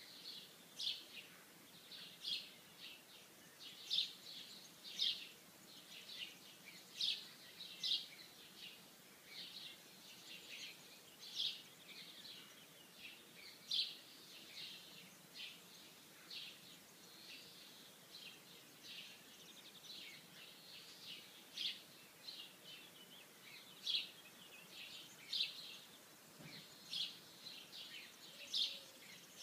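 Small birds chirping in short, high calls, one or two a second and irregular, over a faint background hush.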